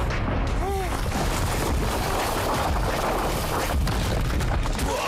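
Cartoon battle soundtrack: dense rumbling and crashing impact effects over music, with a brief high cry about a second in.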